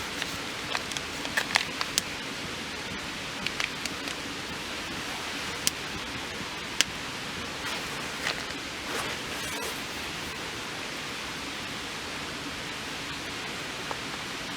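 Steady rain hissing down, with scattered sharp ticks and taps of drops striking close by.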